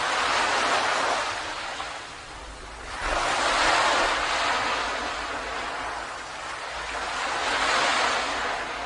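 Ocean waves breaking on a beach, surging and washing back. The surf swells at the start, again sharply about three seconds in, and once more near the end, with quieter lulls between.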